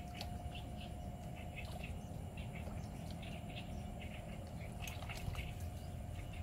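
Duckling tethered to a fishing line as a lure, paddling and splashing on the water with faint short high chirps, over a low steady rumble.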